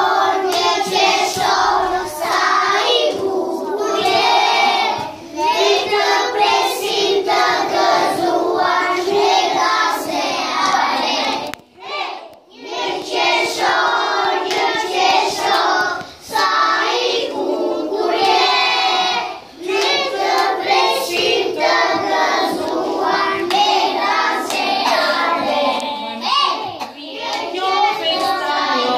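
A group of young children singing a song together, with a short break about twelve seconds in before the singing picks up again.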